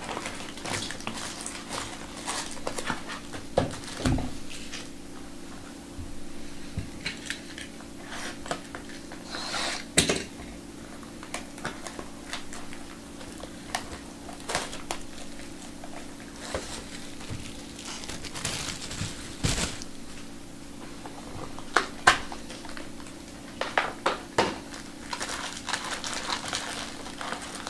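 Foil trading-card packs crinkling and rustling as they are handled and opened, with scattered clicks and taps, over a steady low hum.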